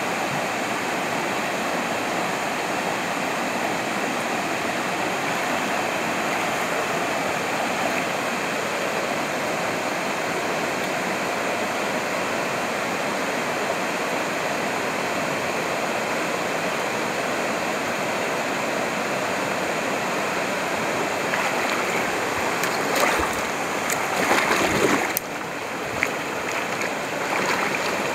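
Mountain stream water rushing steadily. Near the end come a few sharp knocks and louder surges.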